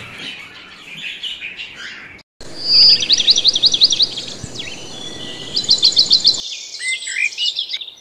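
Small birds chirping: faint budgerigar chatter at first, then, after a brief cut, two rapid runs of high, rising chirps at about seven a second, followed by more scattered chirping.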